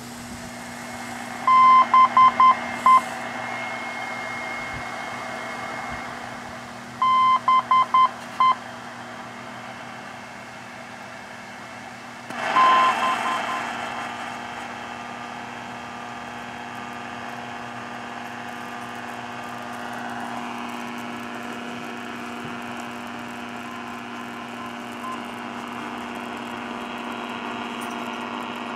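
Radio direction finder receiver playing a steady static hiss, with three groups of short beeps of one pitch about five seconds apart: the Morse identifier of a radio beacon being received. A brief loud rush of static comes with the third group, about twelve seconds in.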